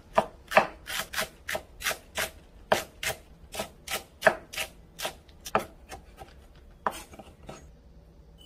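Chef's knife slicing a green onion into thin rings on a bamboo cutting board: a steady run of crisp knife-on-board chops about three a second, thinning to a last few strikes and stopping about seven seconds in.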